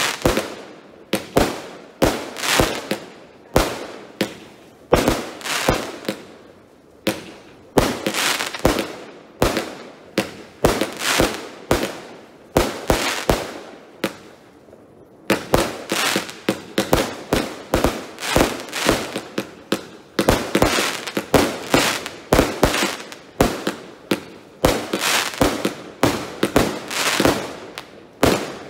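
Consumer (F2) fireworks being fired: a long series of sharp launch and burst bangs, each trailing off, spaced out at first, easing off briefly about halfway through, then coming several a second in a faster barrage to the end.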